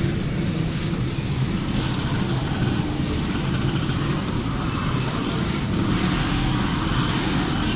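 Pressure washer running steadily: a low motor hum under the continuous hiss of the water jet spraying the motorcycle.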